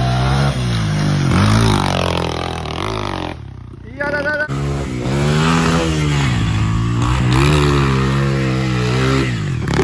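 Honda XR100 dirt bike's single-cylinder four-stroke engine revving up and down as it is ridden over a dirt trail's bumps and corners, the pitch rising and falling with the throttle. The sound breaks off briefly about three and a half seconds in, then carries on.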